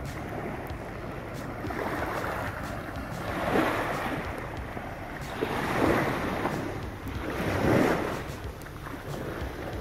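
Small waves washing up on a sandy beach, with wind buffeting the microphone. The wash swells three times, about two seconds apart.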